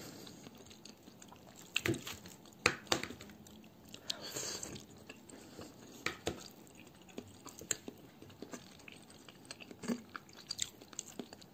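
A person chewing food with small, irregular mouth clicks and crackles, along with light clicks of a metal spoon in a bowl.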